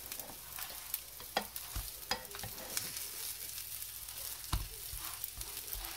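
Grated cheese being sprinkled by hand over a pie filling: a few light, scattered taps and crinkles from the bowl and the baking paper over a steady hiss.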